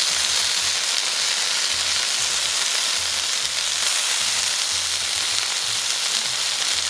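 Pieces of marinated al pastor pork frying in a hot pan on a stovetop: a steady sizzling hiss as the meat finishes searing.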